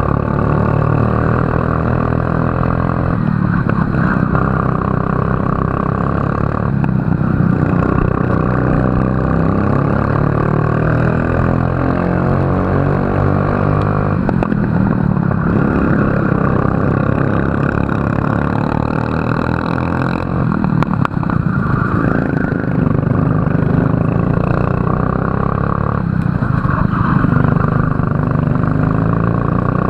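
Racing kart engine at full race pace, heard close up from on board. Its pitch climbs steadily, then drops sharply about five times, as the kart lifts off and brakes into corners and accelerates out again.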